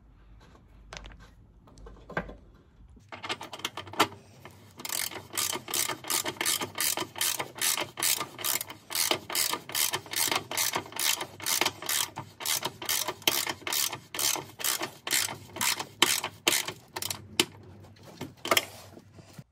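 Hand ratchet wrench clicking in a steady rhythm, about two to three strokes a second, as the bolt of a front engine mount is run in and tightened. The clicking starts about three seconds in and stops shortly before the end.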